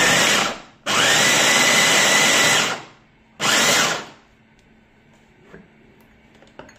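Glen SA4043 Turbo electric mini chopper's motor running in button-pressed pulses while chopping tomatoes. A pulse ends just after the start, a longer one of about two seconds follows, then a short one about three and a half seconds in. Each pulse opens with a rising whine.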